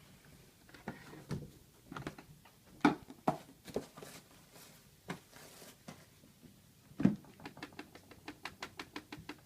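Scattered knocks and clicks, then near the end a quick, even run of light taps, about six a second.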